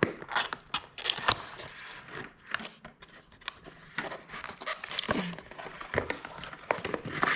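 Irregular handling noises from a product box and its packaging: scattered taps, clicks, scrapes and rustles.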